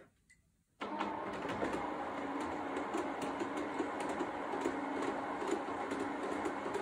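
Small electric motor of a pleated roof blind starting about a second in and then running with a steady hum and whine as it draws the blind back.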